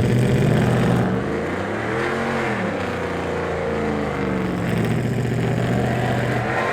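Truck engine revving: its pitch climbs and drops back a couple of times around the middle, between steady running at the start and end.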